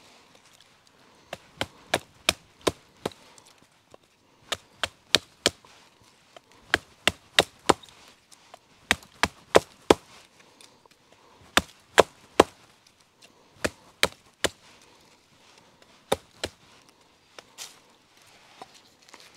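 Beavercraft AX1 short-handled hatchet splitting a thin stick on a log: sharp wooden knocks in bursts of three to five, about two or three a second, with short pauses between bursts.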